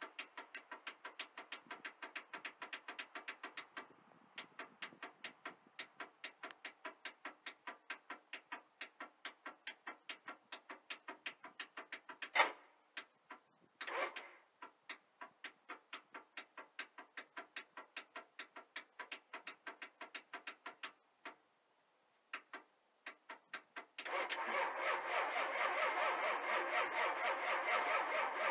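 1993 Ford F-350's 7.3-litre IDI diesel V8 cranking over on the starter in the cold, with even compression beats about four to five a second, two short pauses and two louder knocks midway. Near the end it catches and runs steadily.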